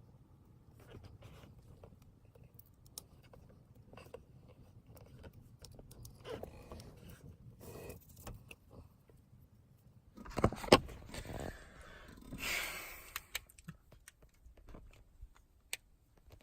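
Hands working double-sided tape onto a shift knob: scattered small clicks, taps and rustles, with a few louder knocks about two-thirds of the way in and a brief scratchy rasp just after.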